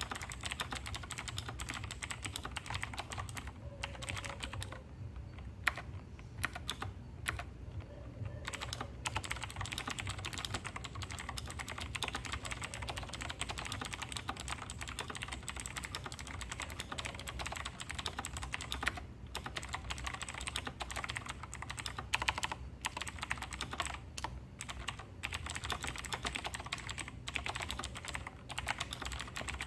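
Continuous fast typing on a Razer BlackWidow Tournament Edition Chroma V2 mechanical keyboard with clicky Razer Green switches, keys clacking in rapid streams. There are a few short pauses, the longest about four seconds in.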